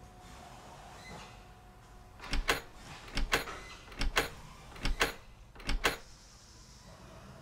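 Metal barrel bolt latch being worked: five sharp double clacks, a little under a second apart.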